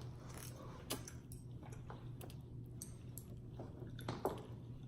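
Faint chewing and mouth sounds of people eating noodles, with scattered small clicks and smacks, over a low steady hum.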